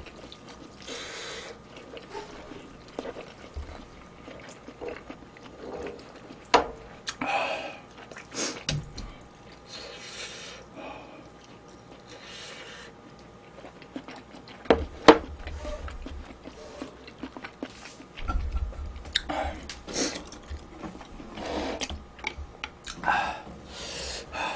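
A person eating spicy instant ramen noodles close to the microphone: intermittent slurping and chewing, with a few sharp clicks scattered through.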